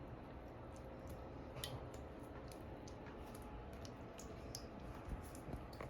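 Slime being handled and pulled apart: faint, scattered sticky clicks and squishes over a low background rumble.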